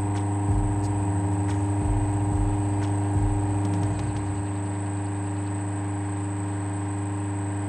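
Freshly repaired desert-cooler fan motor, a capacitor-run AC motor, running with a steady electrical hum, its jammed shaft now turning freely. A few light clicks sound in the first half.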